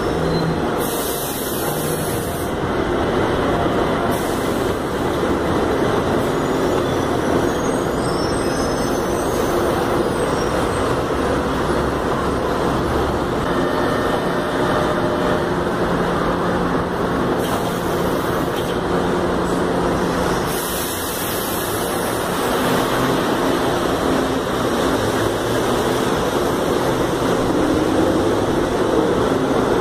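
São Paulo Metro electric trains running through stations: a steady rumble of train noise, with short bursts of high hiss about a second in and again past halfway.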